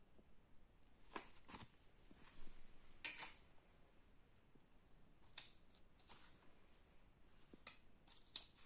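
Faint scattered clicks and rustles of small parts being handled at a button press: paper circles and plastic parts being set into the dies. The sharpest click comes about three seconds in.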